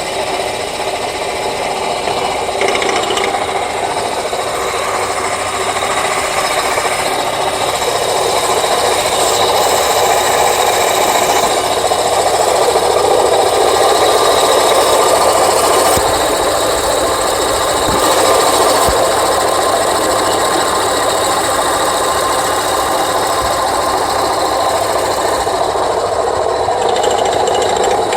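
An engine running steadily with a continuous rattling noise.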